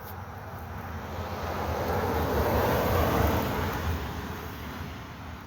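A vehicle passing on the road: tyre and engine noise grows louder to a peak about three seconds in, then fades away.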